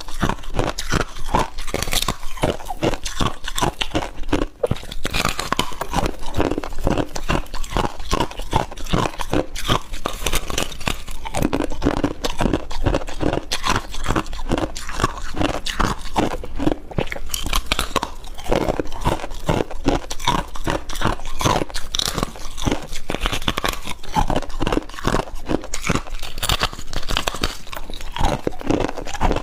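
Chewing and crunching mouthfuls of humidifier-grown freezer frost: a dense, unbroken run of crisp, crackling crunches.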